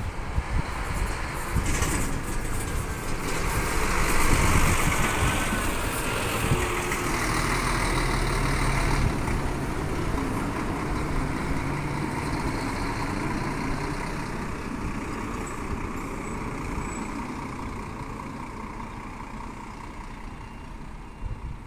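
Irizar-bodied intercity coach driving past close by, its diesel engine running loudest about four seconds in, then fading gradually as the coach pulls away.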